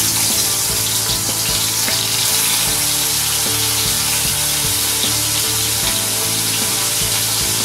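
Whole chapila (Indian river shad), rubbed with salt and turmeric, sizzling steadily in hot mustard oil in an aluminium kadai as they shallow-fry.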